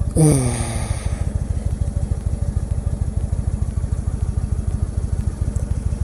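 2014 Indian Chief Vintage's Thunder Stroke 111 air-cooled V-twin idling steadily at a standstill, with an even pulsing beat.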